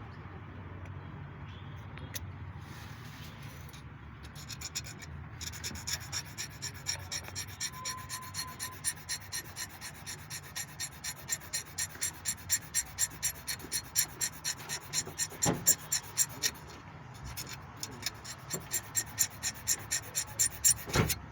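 A hand tool scraping or rubbing on a workpiece in steady back-and-forth strokes, about two or three a second. The strokes start about five seconds in, stop briefly near the three-quarter mark and start again. There is a sharp knock in the middle and another near the end.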